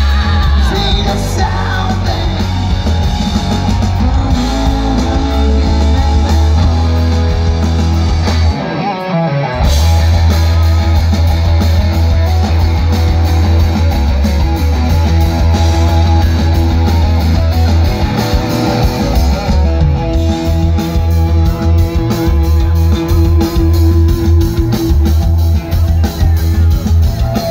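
A live rock band playing loud, with electric guitars, bass guitar, drums and singing, and a heavy low end. The bass drops out for about a second a third of the way in, then comes back.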